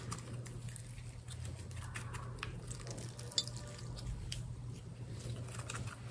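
Soft glossy slime being stretched, folded and squeezed by hand, giving scattered small sticky clicks and wet squelches.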